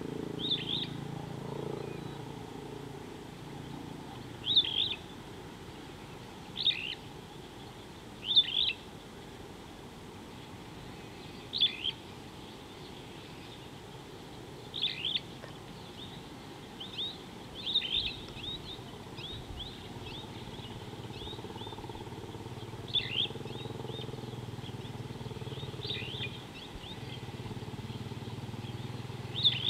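A bird calling in short, sharp chirps repeated every few seconds, with a quicker run of calls about halfway through, over a steady low outdoor hum.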